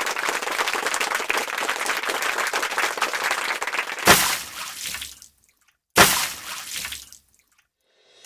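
Steady hiss of heavy rain for about four seconds, then two sudden loud crashes about two seconds apart, each dying away within a second, with silence between and after them.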